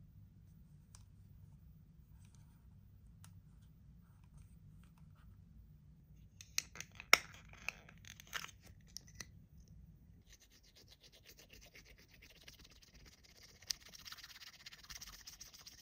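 A plastic mystery capsule being handled and opened: a quick run of clicks with one sharp snap. Then, from about ten seconds in, a coin scraping steadily across the foil of a scratch-off card.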